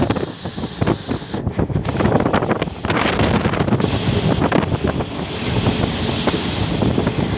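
Running noise of a moving ICF passenger coach: steady rattling and knocking of the coach and wheels on the track, with wind buffeting the microphone and growing louder about two to three seconds in.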